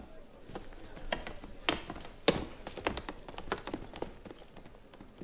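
Footsteps of a group of men climbing stairs: uneven, overlapping sharp steps, a few per second, loudest in the middle.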